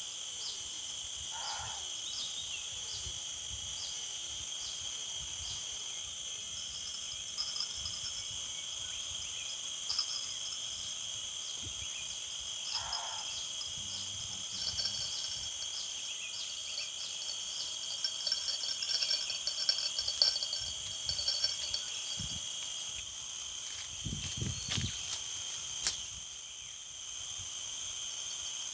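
Chorus of crickets and other insects: several steady high-pitched trills overlap with fast repeated chirping. A few low knocks come near the end.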